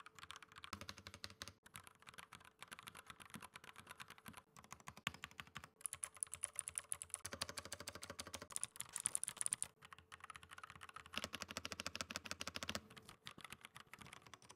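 Fast typing on an Edra EK375 Pro mechanical keyboard, a sound test of three switch types in turn: red linear switches first, blue clicky switches around the middle, brown tactile switches near the end. A quick run of key clacks, with a sharper, higher click added during the blue-switch part.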